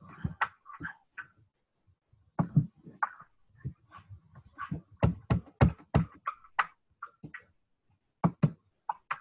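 An irregular run of short clicks and taps, thickest from about four to seven seconds in, with silent gaps between.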